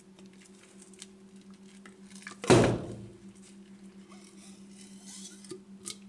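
Plastic refrigerator water filter cartridge being worked out of its cut-open plastic housing: faint clicks, then one loud scraping knock about two and a half seconds in, over a steady low hum.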